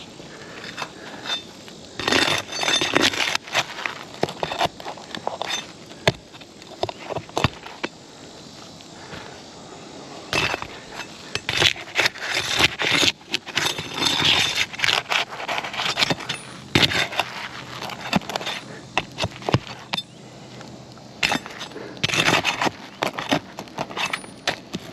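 Prying and scraping at asphalt roof shingles to work roofing nails loose: irregular bursts of scraping and crackling with sharp clicks and knocks.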